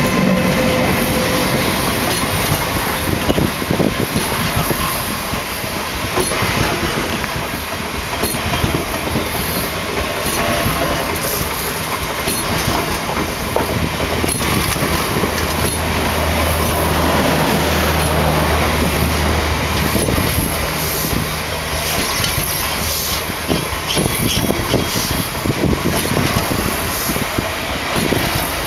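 Talgo passenger coaches rolling past at close range: a steady running rumble with repeated clacks of the wheels over the rail joints. A low hum joins for a few seconds in the middle.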